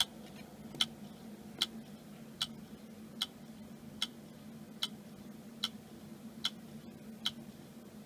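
Portable external hard drive clicking steadily, one sharp click about every 0.8 seconds over a low steady hum. This is the 'click of death' of a read head failure.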